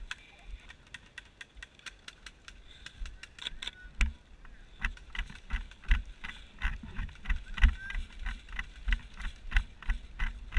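Footsteps through grass with carried gear rattling and clicking: uneven low thumps about twice a second, with sharp clicks over them.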